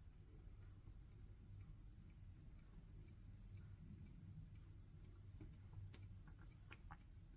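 Near silence: room tone with a low hum and faint, regular ticking at about two ticks a second, with a few slightly louder clicks near the end.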